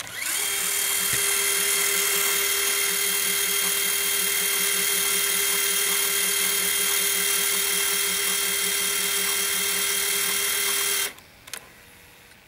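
Tape transport motor of a Sony Handycam CCD-FX730VE Video8 camcorder winding the tape at high speed: a loud, steady whir that spins up in the first half second and cuts off suddenly about 11 seconds in.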